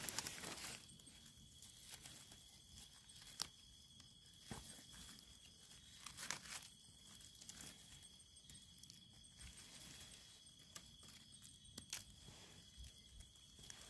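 Near silence with a few faint rustles and snaps of dry leaf litter and twigs as a hand clears debris and plucks a wild mushroom from the forest floor, over a faint steady high whine.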